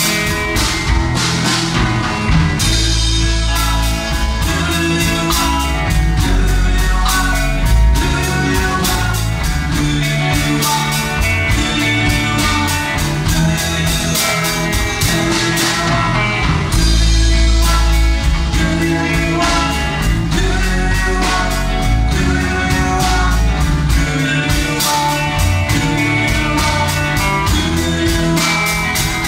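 Rock and roll band music with a steady drum beat and guitar, and singing over it.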